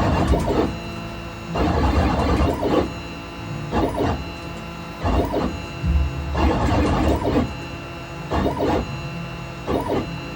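CNC machine cutting a logo, its motors making a steady whine with uneven surges every second or two as the axes move.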